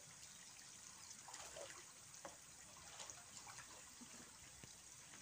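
Near silence: faint outdoor ambience with a soft trickle of water and a few small ticks.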